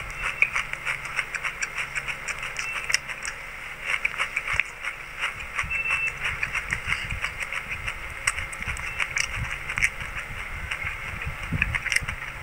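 Chewing and crunching of mouthfuls of white sesame seeds: a dense run of fine, rapid crackles, with a spoon scooping through the dry seeds in the bowl.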